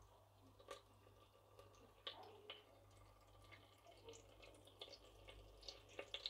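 Near silence broken by a few faint, scattered crackles and pops: butter melting in olive oil as it heats in a stainless steel pot.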